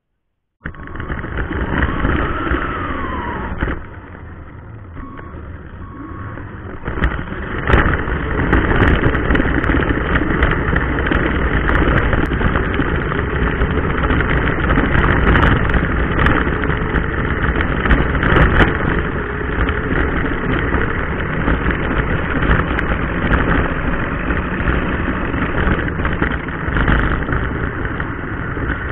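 Electric motor and gearbox of a Xinlehong 9125 RC car running, with its tyres rumbling over rough pavement, picked up by the camera mounted on the car. The sound gets louder and heavier about seven seconds in, with scattered sharp knocks from bumps.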